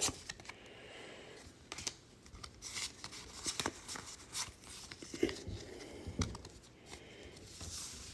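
Foil wrapper of a Pokémon trading card booster pack being torn open and handled, with irregular small tears, crinkles and clicks.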